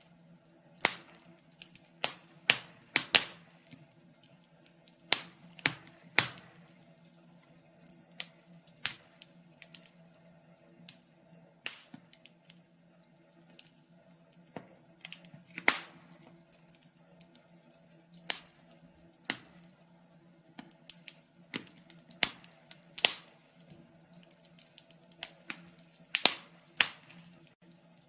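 Wood fire crackling: irregular sharp pops and snaps, some much louder than others, over a faint low steady hum.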